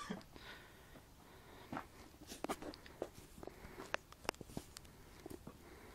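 Faint, irregular small clicks and rustles of a hand-held camera being handled.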